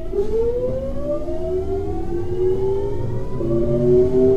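Kintetsu 3200 series electric train's GTO-VVVF inverter and traction motors whining as the train accelerates: several tones climb steadily in pitch, jumping to a new set of tones just after the start and again about three and a half seconds in, as the inverter changes its switching pattern, over a low running rumble.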